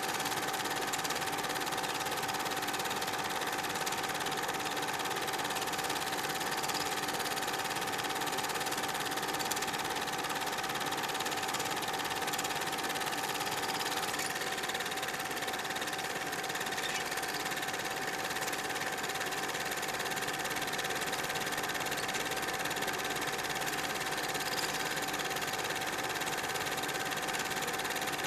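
Super 8 film projector running steadily: a continuous mechanical whir with a constant high whine.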